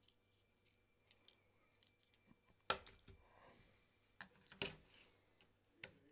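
Light clicks and taps of small hand tools and parts being handled while a Redmi 9A smartphone is worked on. Three louder clicks fall in the second half, with fainter ticks and a brief scrape between them.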